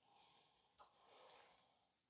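Near silence: room tone, with a faint click and a soft, brief hiss about a second in.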